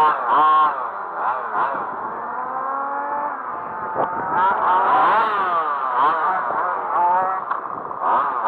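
Quarter-scale radio-controlled race cars' small two-stroke petrol engines running at high revs. Several engines overlap, rising and falling in pitch as the cars accelerate and slow around the track.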